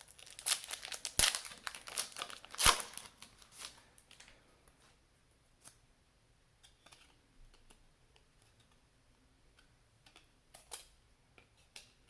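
Trading card pack wrapper being torn open and crinkled, with two sharp snaps in the first three seconds. After about four seconds it goes quiet apart from a few faint clicks as the cards are handled.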